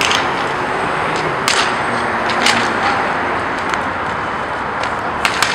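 Inline roller hockey play: a steady rush of noise under sharp clacks of sticks and puck, several scattered through and two quick cracks close together near the end.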